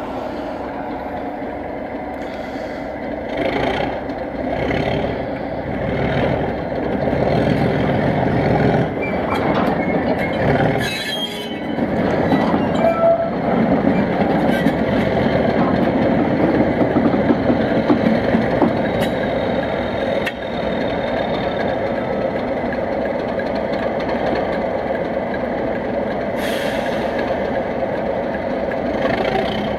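Pair of Class 37 diesel locomotives with English Electric V12 engines running, a loud steady engine sound that grows louder about six seconds in. A short hiss comes about eleven seconds in.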